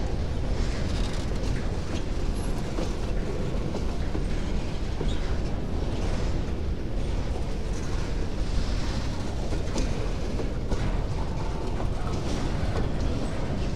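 Empty freight hopper wagons rolling past close by: a steady low rumble of steel wheels on the rails, broken by scattered clicks and clanks as the wheels cross rail joints and the couplings knock.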